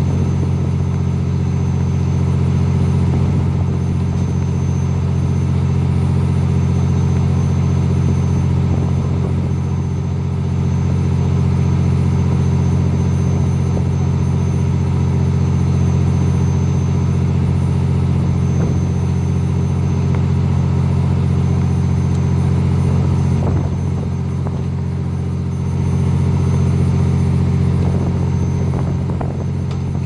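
Fishing boat's engine running steadily: a loud, even, low drone.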